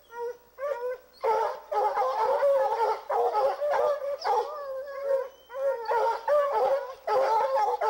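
A pack of Treeing Walker coonhounds baying in chorus, many drawn-out, wavering calls overlapping. The hounds are in pursuit of a mountain lion that has just jumped out of its tree. The calls are sparse for the first second, then the chorus runs almost without a break.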